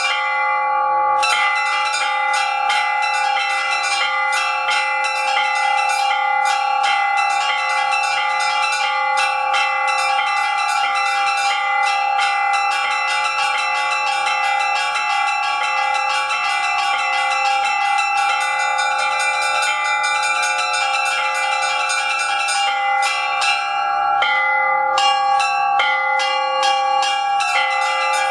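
Russian Orthodox church bells rung by hand: quick strikes of the small chiming bells over the long-ringing hum of the larger bells. The small bells break off briefly about a second in and again about four seconds before the end.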